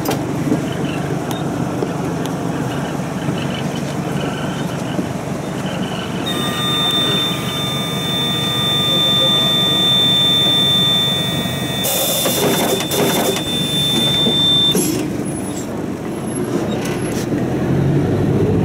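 Inside a city bus standing at a traffic light: a steady engine rumble, joined in the middle by a high steady tone lasting about eight seconds and a brief hiss of air. The engine grows louder near the end as the bus pulls away.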